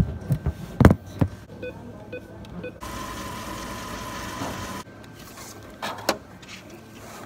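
A few sharp handling knocks, then three short electronic beeps about half a second apart, followed by a small motor whirring steadily for about two seconds and a few soft clicks.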